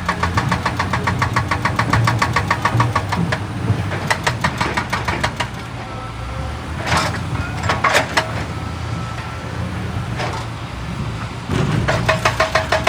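Excavator's diesel engine running under load while a hydraulic breaker hammers rock in a fast, even rhythm of about eight blows a second. The hammering stops about three seconds in, leaving the engine and two loud clanks of steel on rock near the middle. It starts again near the end.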